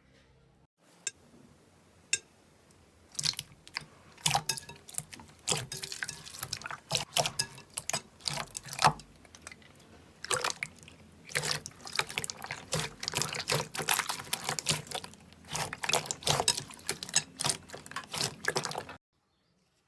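Slime being squeezed and kneaded by hand, giving a dense run of wet, irregular clicking pops and squelches after two lone clicks near the start; it stops abruptly shortly before the end.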